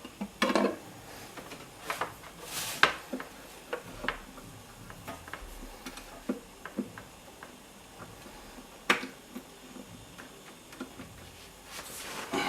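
Scattered light clicks and knocks of small hard parts being handled, a few of them sharper, with quiet handling noise between.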